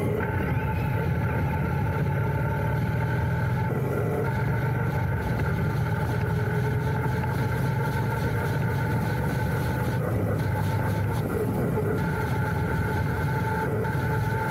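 Royal Enfield Interceptor 650's parallel-twin engine running steadily, its low engine note joined by a few steady higher tones.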